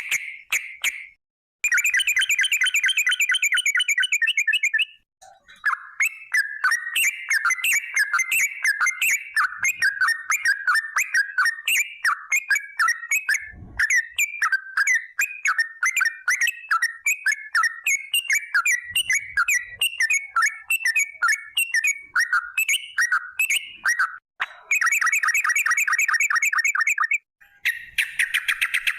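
Yellow-vented bulbul (trucukan) singing loudly: long rapid trills of fast, evenly repeated notes near the start and again near the end, with a long varied chattering run of quick bubbly notes between them.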